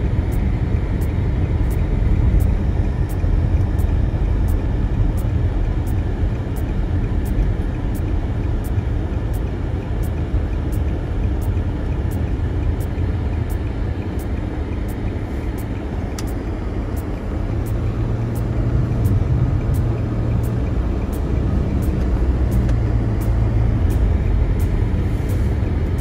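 Car driving on snow-covered roads, heard from inside the cabin: a steady low rumble of engine and tyres, swelling slightly toward the end.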